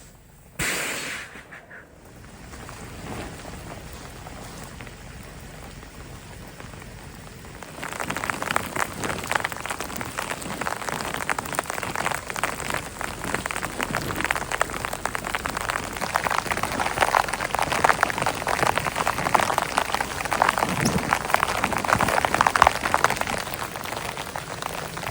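Rain pattering on a surface as a dense crackle of drops, heavier from about eight seconds in. A short, loud noise comes about half a second in.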